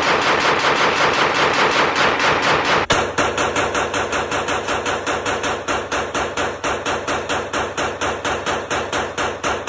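Glock 43X 9mm pistol firing rapidly and without pause, about five shots a second, emptying a Pro Mag drum magazine in an indoor range, with a brief dip about three seconds in.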